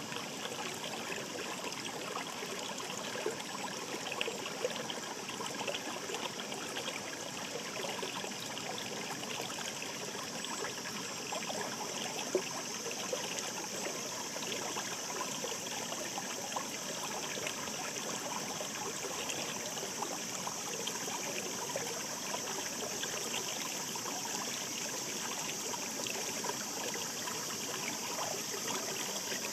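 A shallow mountain river babbling and trickling over stones, a steady rush of water with small splashes throughout.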